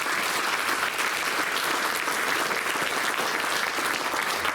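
Audience applauding steadily in a council chamber.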